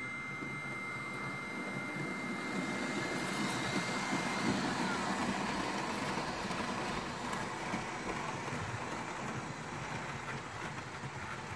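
Fleischmann H0 model steam locomotive running past with its passenger coaches. A high, steady motor whine drops in pitch about four and a half seconds in as the train passes, over the rumble and clatter of the wheels on the track.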